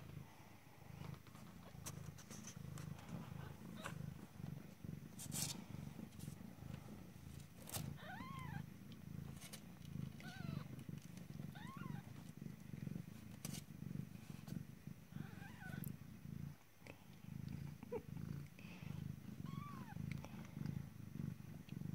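Mother cat purring steadily while her week-old kittens nurse, a continuous low pulsing rumble. In the middle and later part, several short, faint, squeaky mews rise and fall in pitch from the kittens, and there are a few soft clicks.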